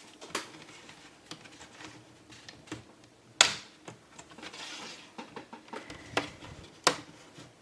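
Plastic clips of a laptop screen bezel clicking loose as it is pried off by hand, with a few sharp clicks (the loudest about three and a half seconds in) and small ticks and rubbing of plastic between them.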